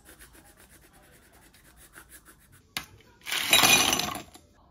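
A pepper grinder turned by hand over food, in quick even ticks, about seven a second. Then, about three seconds in, after a single click, ice cubes tumble out of a plastic bag into a glass mug with a loud rattle that lasts about a second.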